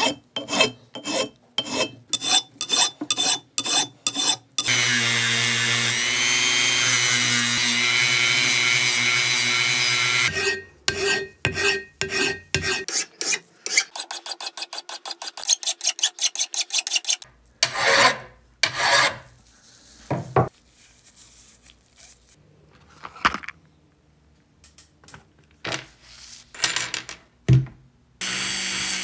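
A flat file rasping on a steel bench vise body at about three strokes a second. Then a rotary tool with a sanding drum runs steadily on the metal for about five seconds, followed by a run of quicker scraping strokes. Scattered rustles and clicks come after, and the rotary tool starts again near the end.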